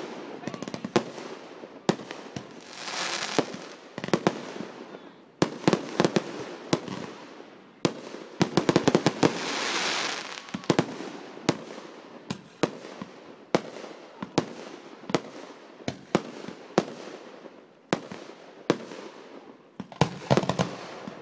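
Fireworks display: a string of sharp bangs from shells bursting, about one or two a second, with two longer stretches of hissing crackle, one about two seconds in and one around nine seconds in.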